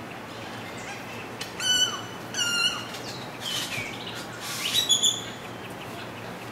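Short, high-pitched, clear animal calls, about five in quick succession over some three seconds, some ending in a quick fall or rise in pitch.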